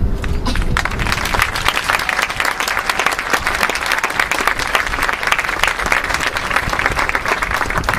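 Crowd applauding during a marching band show, starting about a second in and holding steady until the percussion comes back in.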